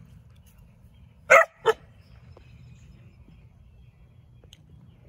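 A doodle dog (poodle-cross puppy) barking twice in quick succession, about a second and a half in.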